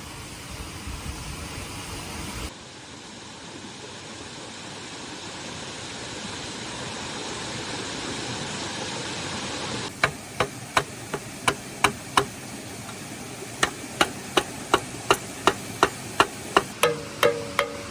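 A steady rushing noise, then from about ten seconds in a run of sharp knocks, roughly two a second, like a tool striking wood.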